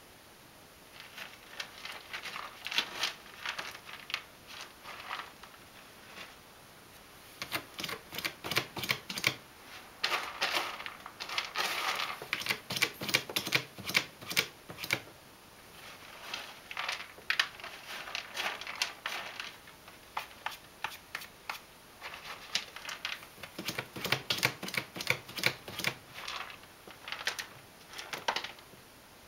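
A ragdoll cat raking cat litter with its paws inside a hooded plastic litter box to cover its waste. It comes as several bursts of rapid, gritty scrapes with short pauses between them.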